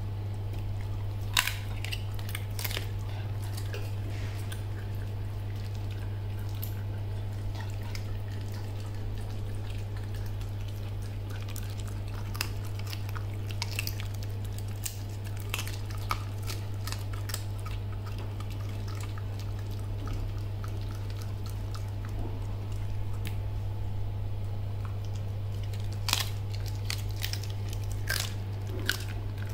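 A puppy chewing and crunching a raw chicken wing, with scattered wet clicks and crunches in irregular clusters. A steady low hum runs underneath.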